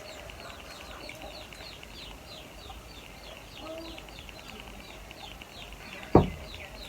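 Chickens in the background, with a steady run of short, high peeping chirps, about three a second, and a faint low cluck midway. A single sharp knock comes near the end.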